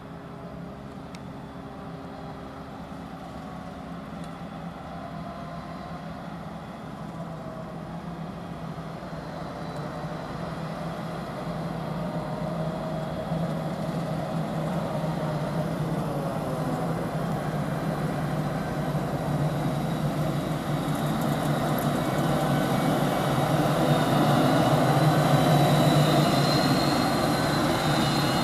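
Heavy farm machinery engines running steadily during grass silage harvesting, growing steadily louder over the whole stretch.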